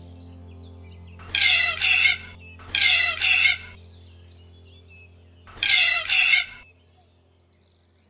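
A white cockatoo calling: three loud, harsh calls, each about a second long and made of two parts, the last after a longer pause. Under them is a soft, steady ambient music drone that fades near the end.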